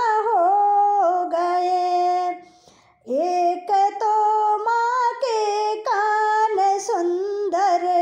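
A woman singing a Hindi devotional bhajan to the Mother Goddess solo, with no instruments, in long held, sliding phrases. She stops for a breath about two and a half seconds in, then sings on.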